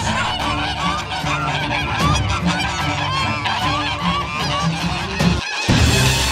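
A flock of white domestic geese honking, many short calls overlapping one another, around a gander fight.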